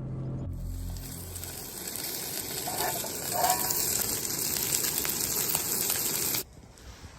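Food sizzling in a frying pan, a steady hiss that starts about half a second in and cuts off suddenly near the end.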